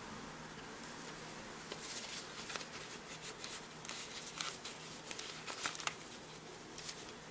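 Paper sticker sheets and planner pages being handled: a run of light rustles, crinkles and ticks, busiest from about two to six seconds in.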